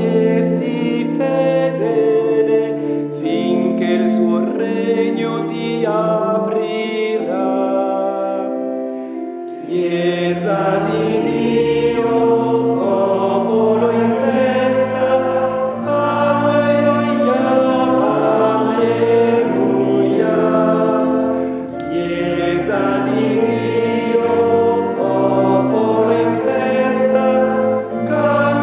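Choir singing a slow sacred hymn in sustained chords; lower voices come in about ten seconds in and the sound fills out.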